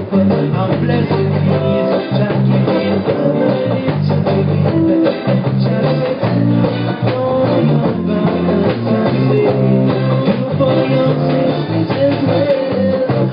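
Live band playing rock music: electric guitar over low bass notes and a drum kit keeping a steady beat.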